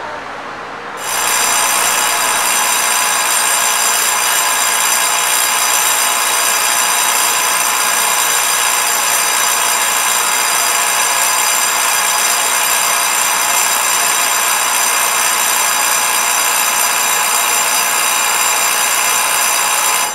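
Station platform electric bell ringing continuously, the signal given while a train stands at the platform before it departs; it starts suddenly about a second in, rings steadily and shrill, and stops suddenly at the end.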